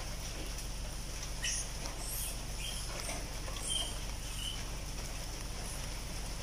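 Steady hiss of light rain, with a few short high squeaks from macaques about one and a half to four and a half seconds in.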